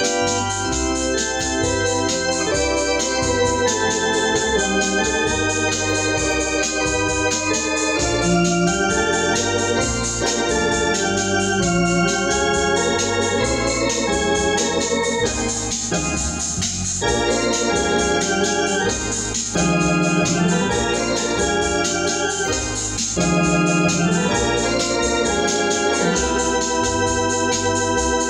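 Hammond home console organ being played: sustained chords and a moving melody line over a bass line that changes notes regularly.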